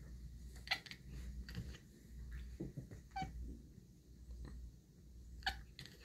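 Domestic cat chirping and chattering at birds seen through a window: several short, faint calls spread irregularly, the loudest about a second in and again near the end, over a low steady rumble.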